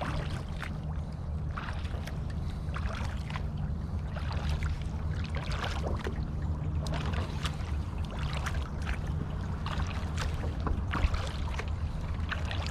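Kayak paddling: the paddle blades dipping and splashing into the water every second or so, with water dripping off them, over a steady low rumble.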